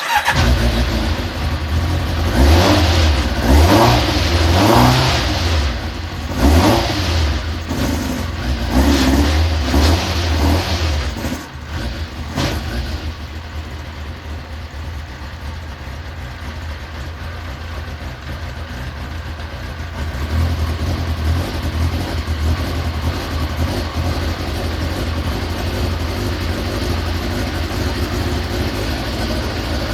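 Carburetted engine running, revved up several times over the first dozen seconds, then settling to a steady idle.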